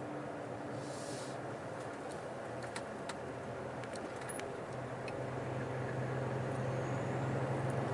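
Truck engine and road noise heard inside the cab while driving. About halfway through, a deeper engine note comes in and the sound grows slightly louder as the truck pulls away onto the motorway slip road, with a few faint clicks.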